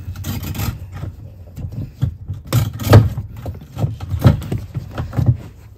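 Hands handling the fuel pump assembly's hose and wiring loom in the fuel tank opening: a series of plastic clicks and knocks with rustling, the loudest knock about three seconds in, over a steady low hum.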